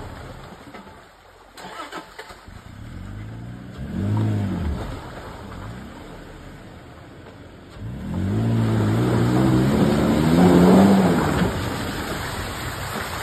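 Pickup truck engine revving: a short rev about four seconds in, then a longer, louder rev from about eight seconds that rises and falls.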